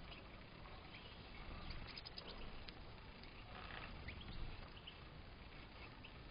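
Faint, scattered high chirps and twitters from European goldfinches, over a low steady hiss, with a little more activity about a second and a half in and again around four seconds.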